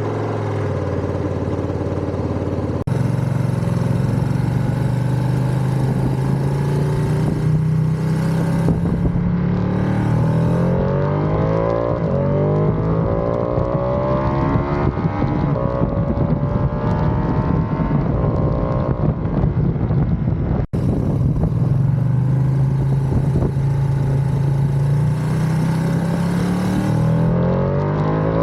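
Ducati Panigale V2's 955 cc Superquadro V-twin engine under way. Its pitch climbs with the revs and drops in steps at the gear changes, then rises and falls again. The sound cuts abruptly twice, at about 3 s and 21 s in.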